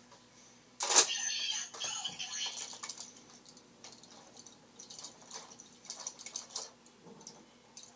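Plastic toy transformation belt and full bottles being handled: a sharp plastic click about a second in, followed by a short electronic sound effect from the toy's speaker, then lighter plastic clicks and taps as pieces are moved and set down on the table.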